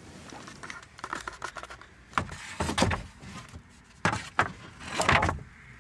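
Wooden boards being loaded into the back of a car: a run of light knocks and clatters, then two louder, longer sliding noises about four and five seconds in.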